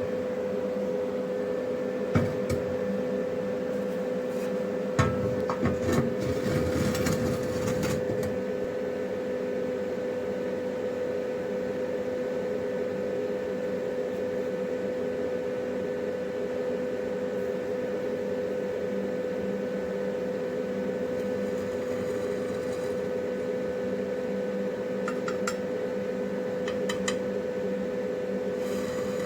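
Steady electrical hum of an arc welding machine. A few metallic clicks and knocks come through, with a stretch of crackling noise about five to eight seconds in.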